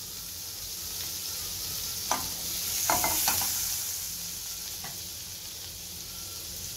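Butter sizzling as it melts and bubbles in a hot stainless steel pan: a steady hiss, with a few sharp pops about two to three seconds in and one more near five seconds.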